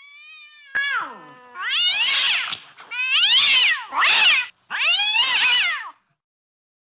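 Domestic cat meowing: a soft meow at the start, then five louder meows, each rising and then falling in pitch, the last three long and loud.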